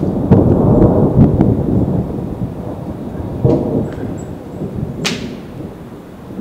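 Thunder rumbling: a loud, low rolling rumble with crackles through the first couple of seconds, a second rumble about three and a half seconds in, and a sharp crack about five seconds in, then dying away.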